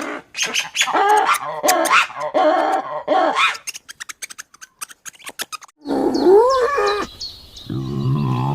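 Animal calls: short pitched cries mixed with many sharp clicks, then clicks alone. About six seconds in, the sound changes suddenly to a different clip, with gliding calls and a low, deep call near the end.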